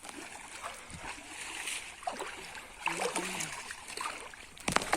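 Pond water sloshing and splashing as a fishing net is worked through it, with a sharper run of splashes near the end.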